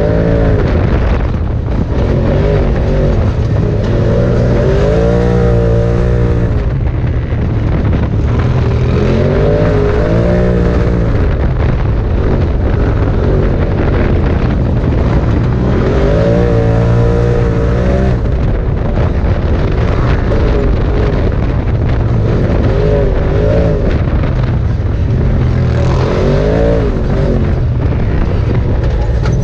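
Polaris RZR side-by-side's engine running at speed, its pitch rising and falling every few seconds as the throttle is worked, over a steady rush of wind and tyre noise, heard from inside the open cab.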